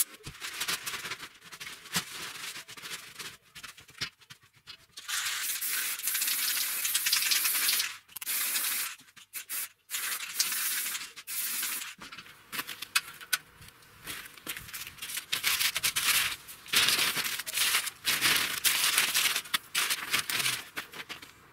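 Aerosol spray-paint can spraying in repeated bursts, a hiss that starts and stops, some bursts lasting a few seconds.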